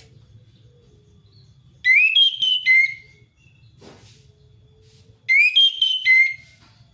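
Orange-headed thrush singing: two loud, near-identical whistled phrases of several quick rising and falling notes, the first about two seconds in and the second about five seconds in.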